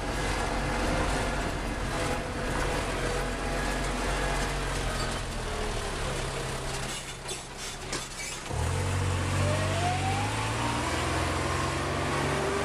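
Golf cart running along a paved path with a steady low hum. The hum dips quieter around seven seconds in, then picks up again, and a whine rises in pitch over the next couple of seconds before holding steady.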